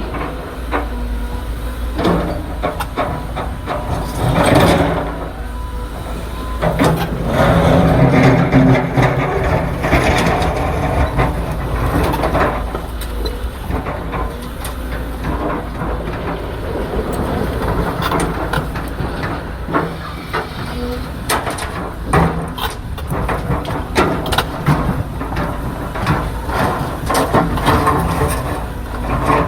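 Large excavator's diesel engine running steadily, with irregular metallic clanks and knocks.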